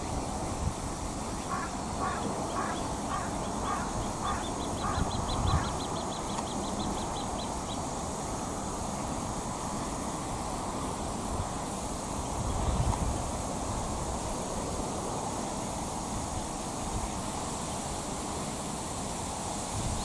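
A waterfowl gives a run of about eight short calls, evenly spaced about two a second. A fast run of high ticks overlaps and follows them. Wind rumbles on the microphone underneath.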